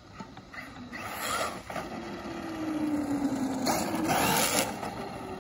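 Traxxas Maxx RC monster truck with brushless power on 4S LiPo driving fast past at close range on wet asphalt. Its motor whine falls slowly in pitch, and bursts of tyre noise from the wet road come twice. The sound is loudest as it goes by about four seconds in.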